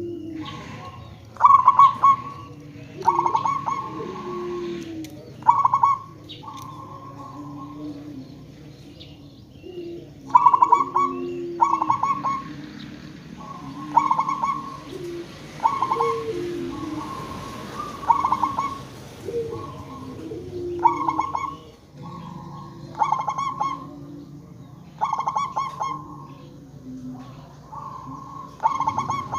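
Zebra doves (perkutut) calling: repeated short, rapid staccato runs of cooing notes every second or two, with softer lower coos between them.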